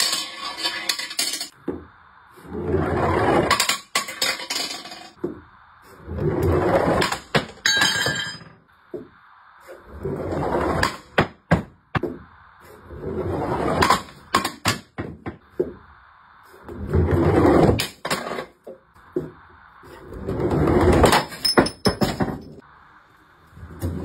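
Heavy balls rolling one after another down a plywood ramp, each a rumble of a second or two ending in sharp knocks and clinks as it strikes a porcelain toilet; about seven runs.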